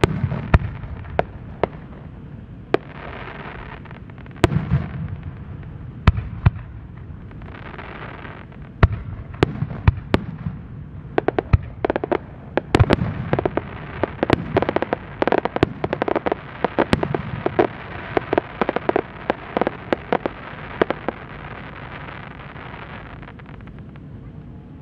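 Aerial firework shells bursting: sharp bangs a second or two apart, each booming with an echo, then a dense run of many quick bangs and cracks through the middle, thinning out near the end.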